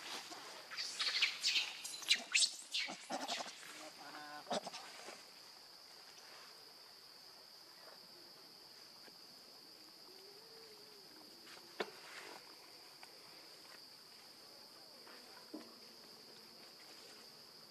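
A baby macaque squealing and crying in a string of short, shrill calls for the first five seconds or so. A steady high insect drone runs underneath throughout.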